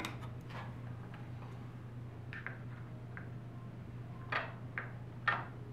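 Scattered small clicks and taps as the plastic camera module of a SMART Board is handled and worked loose from its mount, over a steady low hum. The sharpest clicks come about four and five seconds in.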